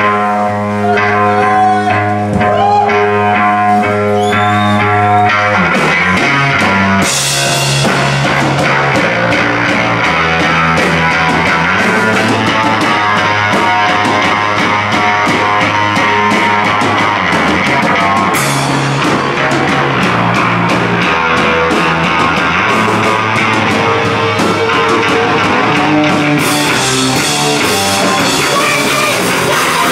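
A live rock band playing loud: electric guitars hold a ringing chord for the first few seconds, then the drum kit and cymbals crash in with the full band about seven seconds in, playing on at full volume.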